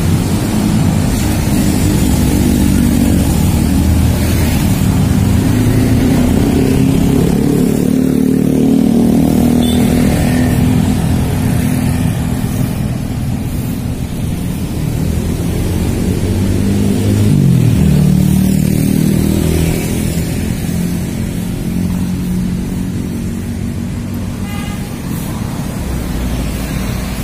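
Road traffic of cars and motorcycles passing on an adjacent multi-lane road, a steady engine and tyre drone. About two-thirds of the way through, one passing engine's pitch drops.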